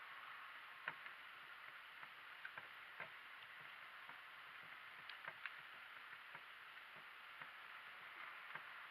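Faint, irregular clicks and knocks from a donkey-drawn cart on the move, over a steady hiss.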